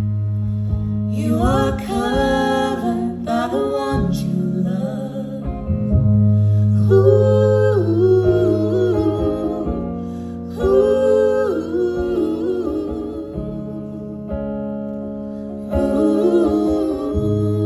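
Live song: female voices singing held phrases with vibrato over a hollow-body electric guitar and sustained low notes.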